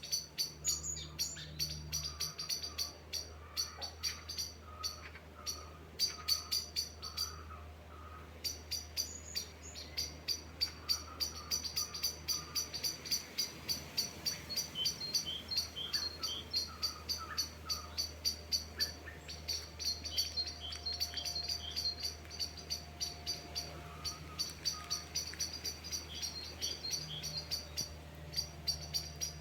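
Birds chirping in quick, repeated high-pitched chirps, several a second, with brief pauses, over a steady low hum.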